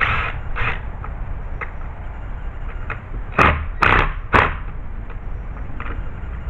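Hands-on work noise on a gate: two soft clattering sounds at the start, then three sharp knocks about half a second apart a little past the middle, over a low steady rumble.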